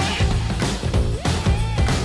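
Rock-style background music with a steady beat.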